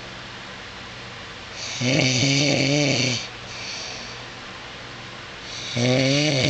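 A man snoring loudly while asleep: two long snores about four seconds apart, each lasting well over a second, with quieter breathing between.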